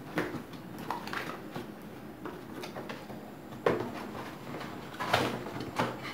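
Cardboard box being opened by hand: flaps lifted and bent back with scraping and rustling. A few sharp knocks and snaps come from the handling, the loudest a little over halfway through.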